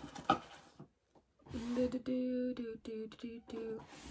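A woman humming a few held notes in a row, after a few brief clicks.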